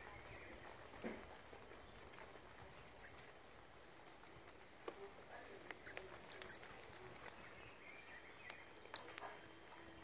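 Faint forest ambience with scattered short, high bird chirps, a brief rapid trill a little past halfway, and a few sharp ticks, the loudest near the end.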